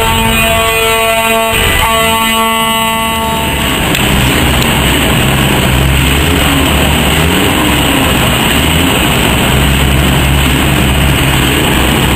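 A truck's air horn sounds a long steady blast, breaks off briefly after about a second and a half, and sounds again. Then, from about four seconds in, a heavy diesel truck engine runs loud and hard as the truck accelerates down the drag strip.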